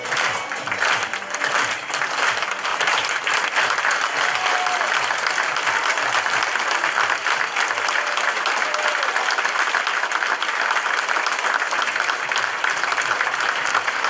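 A theatre audience applauding the cast at the curtain call: dense, steady clapping from a full hall.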